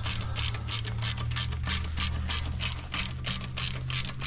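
Hand ratchet wrench clicking at an even rate of about four clicks a second as it is swung back and forth, running down a small bolt that takes only light torque. A steady low hum sits underneath.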